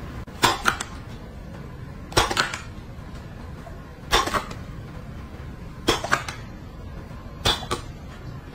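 A person making smacking kiss sounds with puckered lips, a quick double or triple smack repeated about every second and a half to two seconds.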